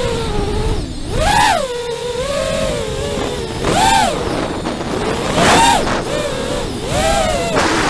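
FPV racing quadcopter's brushless motors and propellers whining, the pitch surging up sharply about four times with throttle punches and falling back between, each surge with a rush of noise.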